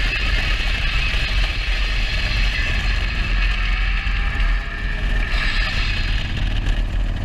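Harley-Davidson motorcycle running at steady cruising speed, buried under heavy wind rumble on the helmet-mounted camera's microphone.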